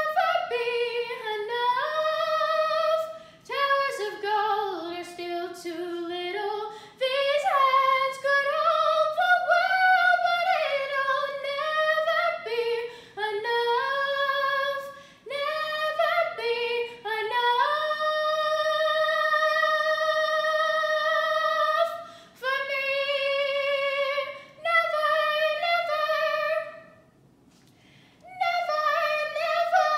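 A teenage girl singing solo and unaccompanied, her voice gliding between notes, with one long held note about halfway through and a brief pause for breath near the end.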